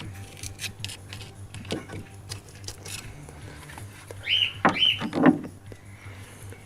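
Light clicks and scraping of a flat screwdriver prying at the fuel filter's plastic fittings, with two short high squeaks about four seconds in.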